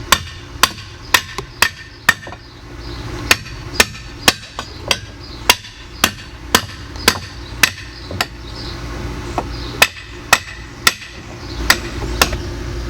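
Hammer blows driving the spikes of a Post Doctor fence-post repair bracket down into the wooden post below the concrete. Sharp ringing strikes come in runs of about two a second, with a few short pauses between runs.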